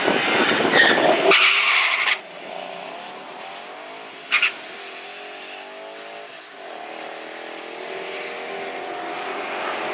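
Drag cars, among them a 2012 Mustang GT with its 5.0 V8, launching at full throttle off the start line, loud. About two seconds in the sound drops sharply to the engines heard far down the strip, their pitch rising as they pull through the gears.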